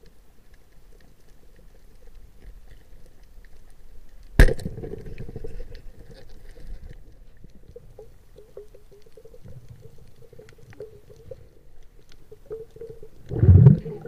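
Speargun fired underwater: one sharp crack about four seconds in, with a faint hum ringing on after it. A louder low rumble comes near the end.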